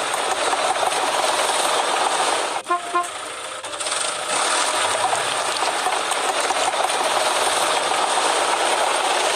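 A steady rushing noise, broken briefly about three seconds in, where a few short tones sound.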